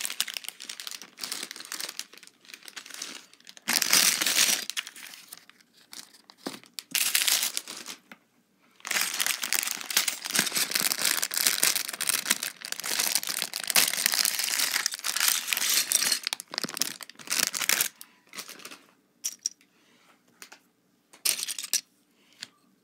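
Clear plastic Lego parts bags crinkling as they are handled and torn open, in several bursts with one long stretch of crinkling in the middle, then a few short clicks near the end.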